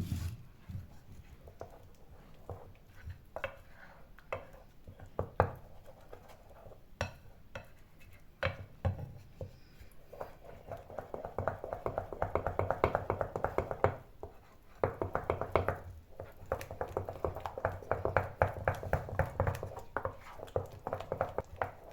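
Pancake batter being mixed in a bowl with beaten egg white, the utensil knocking and scraping against the bowl. A few scattered taps give way, about halfway through, to fast, even mixing strokes that pause briefly and then carry on.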